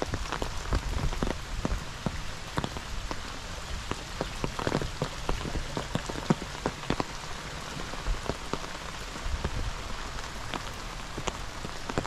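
Steady rain falling on wet ground and pooled water, with many separate drops tapping close by.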